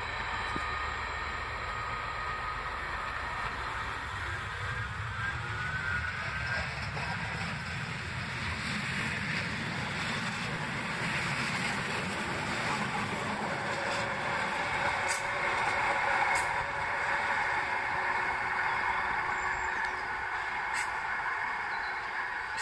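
A Class 66 diesel-electric locomotive runs light and draws away. Then a Metrolink Flexity Swift M5000 tram passes close by, its wheel and motor noise rising to a broad rush that is loudest about two-thirds of the way through before easing off.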